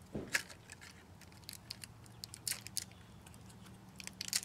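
Film packaging being opened by hand: the small cardboard box and crinkling foil wrapper of a roll of Ilford FP4 film, with scattered light crackles and clicks and a sharper click about a third of a second in.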